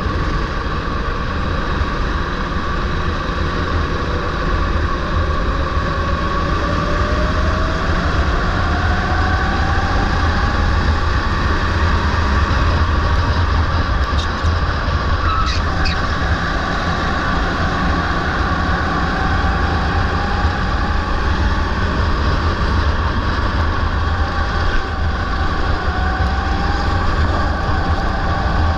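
Onboard sound of a Sodi rental go-kart's engine running at racing speed, its pitch climbing slowly as the kart accelerates, over a heavy wind rumble on the mount-camera microphone, with other karts' engines close by.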